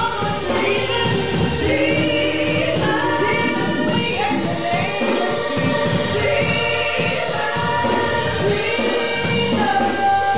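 Three women singing a gospel song together into microphones, their voices holding long sung notes.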